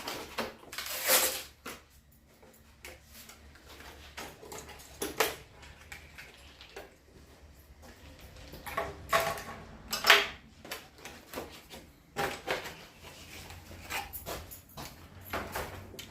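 Hands handling the replacement water heater heating element set: scattered knocks, clicks and rustles of parts being picked up and moved.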